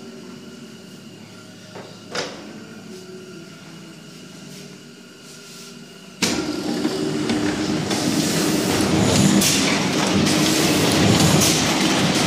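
Heidelberg Cylinder SBG die-cutting press starting up: a faint steady hum and a single knock about two seconds in, then about six seconds in the press comes on abruptly and runs with a loud, continuous mechanical clatter.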